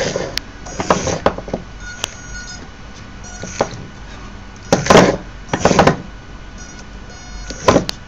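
Small fischertechnik DC motors running in short spurts with a faint high whine, as a two-motor toy robot is driven by joystick, with several knocks and rattles of its plastic parts and wheels on the table.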